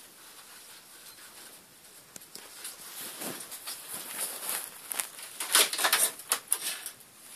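Pet rats moving about a wire cage: irregular scratchy clicks and rustles of claws on the wire bars and in the bedding. The sounds grow busier and louder from about halfway in.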